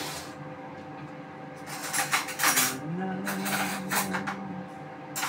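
Metal cutlery clinking against dishes, a quick cluster of clinks about two seconds in and another near four seconds, while a man's voice holds one low note in between.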